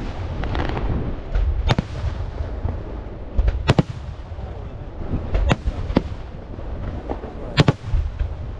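Aerial firework shells bursting: sharp bangs every second or two over a steady low rumble, with several fainter pops between them.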